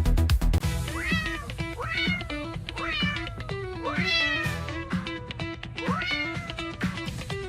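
A cat meowing five times, each a long meow that rises sharply and then slides slowly down, over background music with a steady beat.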